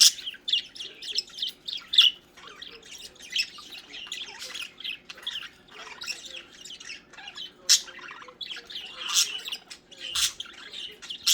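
Several budgerigars chattering and squawking continuously. A few sharper, louder squawks stand out in the second half.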